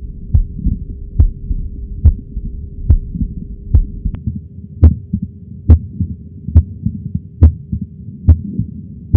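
Recorded heart sounds: a regular heartbeat of about seventy beats a minute, each beat a low thump with a sharp click, over a faint steady hum.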